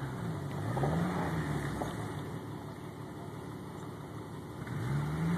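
Jeep engine revving up and easing back as it crawls up a rocky hill climb, twice: about a second in and again near the end.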